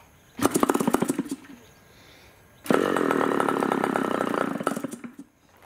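Moki 61 LS two-stroke glow engine being spun by an electric starter in two short bursts. On the second, longer burst it fires and runs briefly, then stops abruptly about five seconds in.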